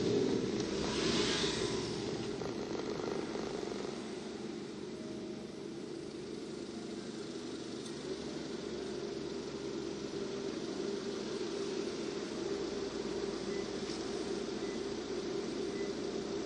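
Steady low drone of a car's engine and road noise heard inside the cabin as the car slows and then stands idling, with a brief swell of hiss about a second in.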